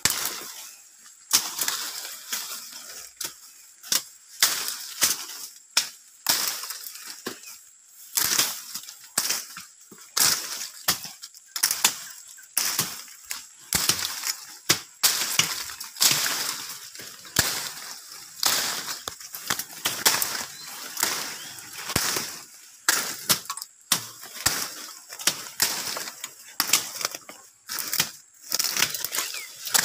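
Repeated sharp chops of a hand blade hacking through brush and small branches, irregular, about one or two strokes a second.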